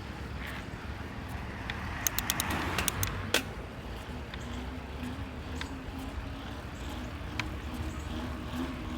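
Yeti SB100 mountain bike making sharp snapping clicks over a steady low rumble, a quick run of several snaps about two to three and a half seconds in and a few single ones later. The snapping persists with a new bottom bracket and headset fitted, so its cause is still unknown.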